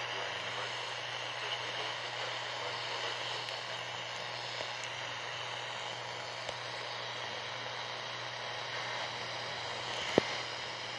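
Steady hiss of radio static with a low steady hum under it, and one sharp click about ten seconds in.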